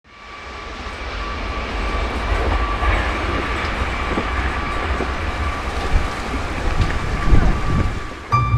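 Meitetsu electric train passing over a level crossing: a rumble of wheels with clacks over the rail joints, under a steady ringing tone from the crossing warning bell. The sound fades in at the start, and music comes in near the end.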